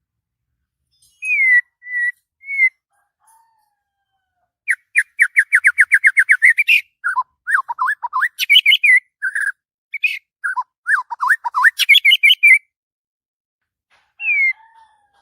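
White-rumped shama singing loudly and excitedly. A few short whistles come first, then a rapid run of about fifteen repeated notes at roughly seven a second, then a burst of varied whistled and warbled phrases, and one last short whistle near the end.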